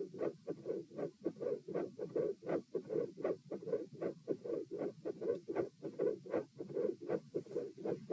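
Human heart sounds through a stethoscope at the pulmonic position: a regular lub-dub beat, the two sounds of each beat following each other steadily at about 78 beats a minute with the body lying down. The rhythm is normal at this stage.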